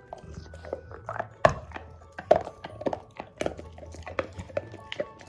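A pit bull crunching a hard mint dental chew: an irregular run of sharp crunches, the loudest about one and a half and two and a half seconds in.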